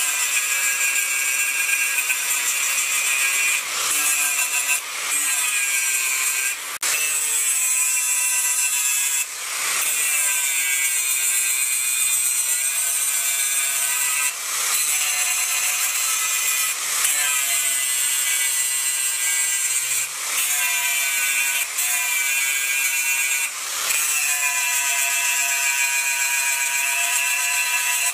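Angle grinder with an abrasive disc grinding a steel spanner into a knife blade: a steady, high-pitched grinding whine whose pitch shifts as the disc bites, with brief dips in loudness every few seconds.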